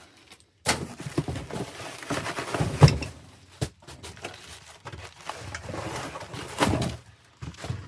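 Packaging rustling and scraping with several sharp knocks as a new furnace inducer motor is lifted out of its box.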